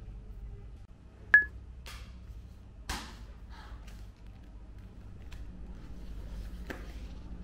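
A short high electronic beep about a second and a half in, then a few soft rustles and light clicks as a spiral-bound notebook is handled on a desk, over a low steady hum.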